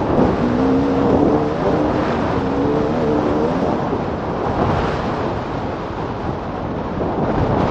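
2014 KTM 300 XC-W's single-cylinder two-stroke engine pulling steadily as the dirt bike accelerates, its note fading under a rush of wind noise on the helmet microphone about halfway through.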